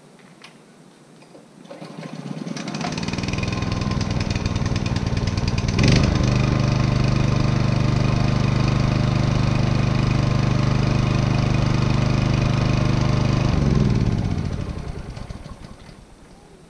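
Honda GX200 single-cylinder engine of a portable generator starting, building up for a few seconds, then running evenly at a steady speed. Shut off near the end, it winds down with falling pitch and fades out.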